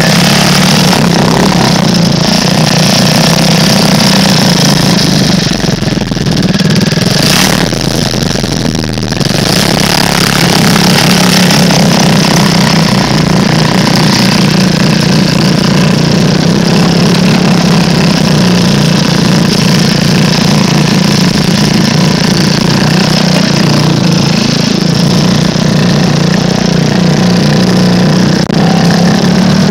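Small off-road vehicle engine running steadily while under way, easing off briefly about six to nine seconds in before picking up again.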